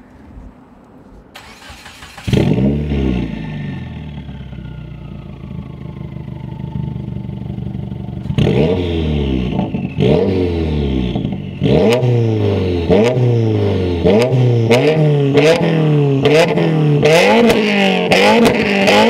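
2016 Subaru WRX's 2.0-litre turbocharged flat-four, running through a catted downpipe and muffler-delete exhaust, starts about two seconds in and runs at a steady idle. From about eight seconds it is revved in quick repeated throttle blips, rising and falling in pitch and coming faster toward the end, with sharp pops and cracks as the revs drop.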